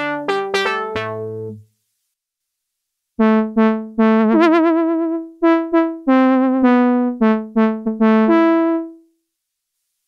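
Roland JUPITER-4 software synthesizer playing analog-style brass presets. A short run of notes and chords ends about a second and a half in, and after a pause a second phrase starts. In that phrase one held note wavers with vibrato, and the phrase stops near the end.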